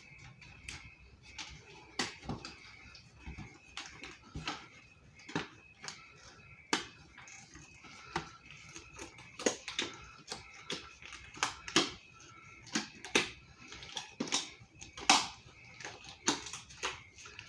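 White latex gloves being pulled on and worked over lotioned hands: irregular sharp snaps and rubbing clicks of the stretching latex, coming a few times a second and denser near the end.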